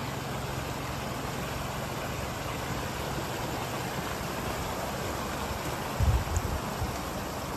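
Storm water gushing steadily out of a clay-tile drainage pipe outlet and splashing over broken tile and rock, the drain running full after a heavy rain. A few low thumps on the microphone about six seconds in.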